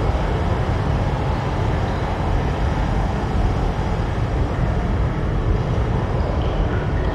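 Cave interior ambience of a fierce storm and ocean waves outside: a steady, deep noise, heaviest in the bass, with no separate events.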